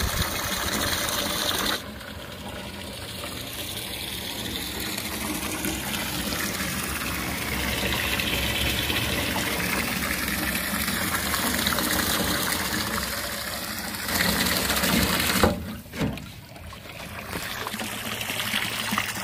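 Water splashing steadily from a livewell inlet spout into a partly filled aluminum livewell tank as the livewell pump fills it. Near the end it gives way to a stream of water jetting out of an outlet in the hull and splashing into the lake.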